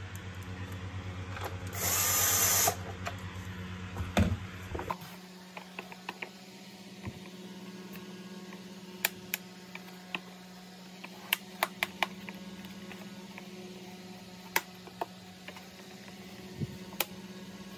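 Cordless drill/driver with a Torx T20 bit spinning for under a second, about two seconds in, driving a screw into a plastic vacuum cleaner housing. Then a couple of knocks and scattered sharp plastic clicks as the housing is handled and its latches are pushed in.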